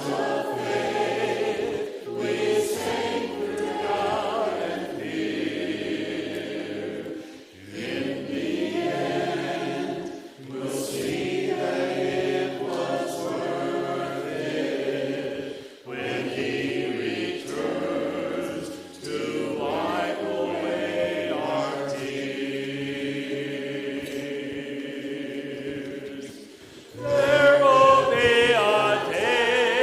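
A group of voices singing a worship song together, phrase by phrase with short breaths between, getting noticeably louder near the end.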